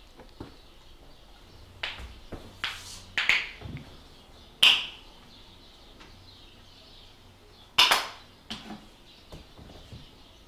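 A few sharp clicks and knocks, the loudest about four and a half seconds in and again about eight seconds in, one of them with a brief ring.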